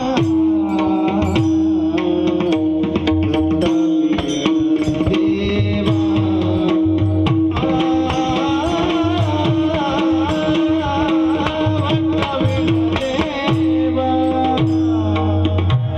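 Devotional bhajan music: a mridang drum plays a fast stream of strokes under a steady held drone note and a melodic line.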